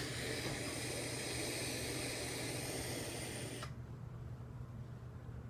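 Long draw on a Donner vape tank: a steady hiss of air and vapour pulled through the tank. It cuts off suddenly about three and a half seconds in.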